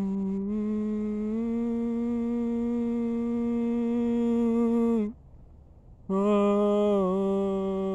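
A person humming long held notes. The first lasts about five seconds and steps up slightly in pitch after about a second; after a short breath, a second note starts about six seconds in and dips briefly in pitch partway through.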